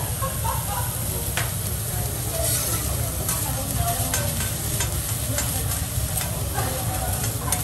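Chicken fried rice and diced chicken sizzling on a teppanyaki steel griddle while a metal spatula and fork scrape and click against the plate, mixing them together, over a steady low hum.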